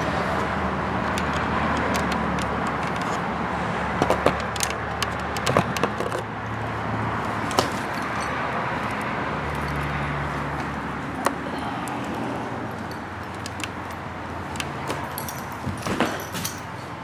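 Steady rumble of road traffic, with scattered sharp clicks and rattles, mostly between about four and six seconds in and again near the end.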